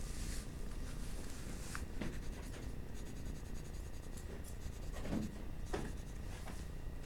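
Graphite pencil drawing on paper: several short strokes with pauses between them.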